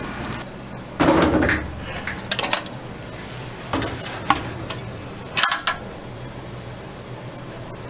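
Metal stockpots being handled, with a handful of knocks and clatters, the loudest about a second in and another cluster about five and a half seconds in, over a steady kitchen background hum.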